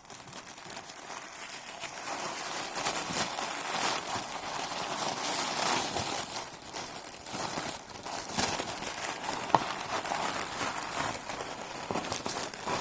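Packaging being unwrapped by hand: continuous rustling and crinkling of wrapping, with small clicks and one sharp tick about two-thirds of the way through.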